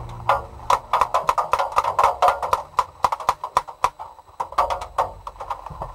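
Rapid, irregular clicks and knocks from hands working a paintball marker and its loader, picked up close by its gun-mounted camera.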